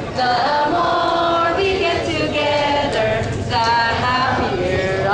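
Unaccompanied singing: a woman's voice on a microphone carrying a slow melody in long held notes, with a group of voices singing along.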